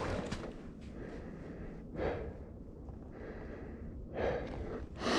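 A man's heavy breathing: two loud exhales, about two seconds in and again near the end, over a low steady rumble.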